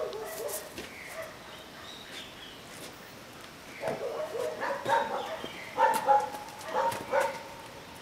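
Dogs barking: a few barks at the start, then a busier run of barking in the second half.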